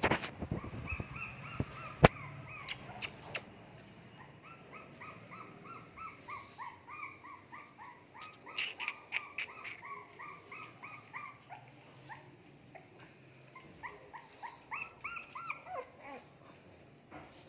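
Pug puppies whimpering in a run of short, high cries, several a second. A few sharp knocks come in the first few seconds, the loudest about two seconds in.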